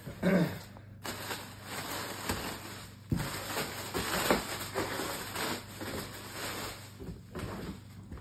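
Plastic packing wrap crackling and rustling while cardboard boxes are handled, with a few knocks of cardboard against cardboard, the sharpest about three seconds in.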